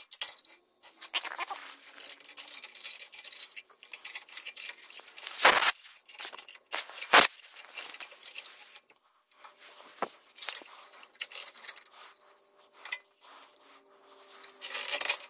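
Go-kart roller chain being handled, its metal links clinking and rattling, along with rustling. Two sharp knocks stand out, about five and a half and seven seconds in.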